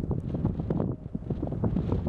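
Wind buffeting the microphone outdoors: an uneven, gusty rumble with rapid irregular flutter and no steady tone.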